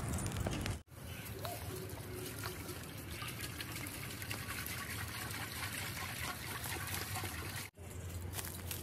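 Water poured from a plastic can into a large metal cooking pot: a steady pouring splash that starts abruptly about a second in and stops abruptly near the end.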